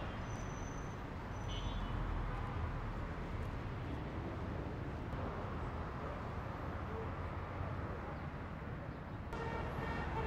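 Steady city street traffic noise from passing cars. A pitched sound comes in about a second before the end.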